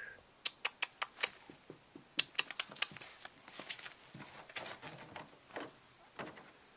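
Small puppy paws and claws scrabbling and tapping on a puppy training pad as two Chihuahua puppies romp: a run of irregular quick taps and scratches.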